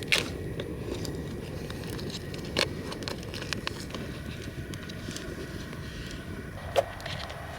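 Pot of soup simmering over a campfire: a steady low rumble with a few sharp clicks, the loudest right at the start and another near the end.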